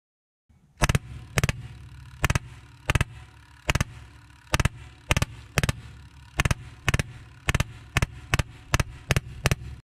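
Rapid semi-automatic shots from a .22 calibre HPA air rifle, about sixteen sharp cracks, slightly faster toward the end, over a steady low hum.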